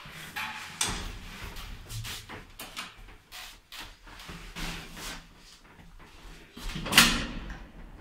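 Clunks and rattles of a 1978 ZREMB passenger lift's automatic car doors and mechanism, heard inside the car over a steady low hum that starts about a second in. There is one loud clunk about seven seconds in.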